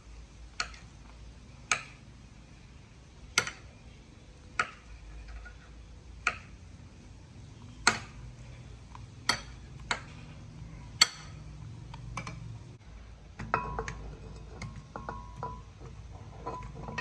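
Kitchen utensils knocking sharply, about nine single knocks a second or so apart, then a run of lighter clinks with a faint ring near the end.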